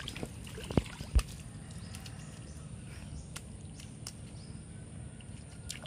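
Quiet outdoor background with a steady low rumble. Two dull thumps come about a second in, and a few faint ticks follow later.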